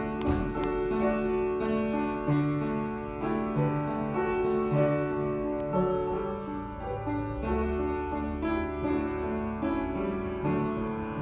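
Slow instrumental music on a keyboard, held chords and a melody moving note by note.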